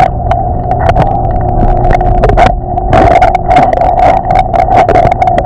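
Underwater swimming-pool ambience picked up by a submerged camera: a steady drone and low rumble with many short clicks and crackles throughout.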